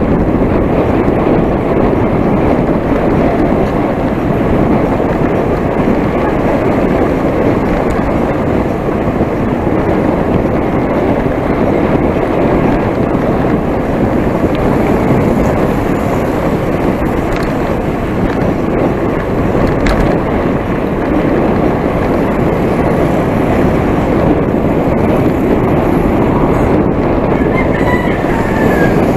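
Wind rushing over the microphone of a camera mounted on a moving bicycle: a steady, loud, low rushing noise with no breaks.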